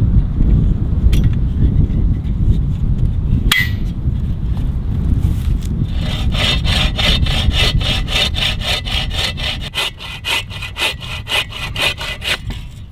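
Folding handsaw cutting through a log with quick, even back-and-forth strokes, starting about six seconds in and stopping near the end. Before that, wind rumble on the microphone and a sharp click about three and a half seconds in.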